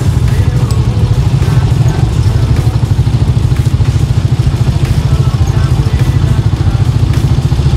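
A small engine running steadily close by, with a fast, even throbbing.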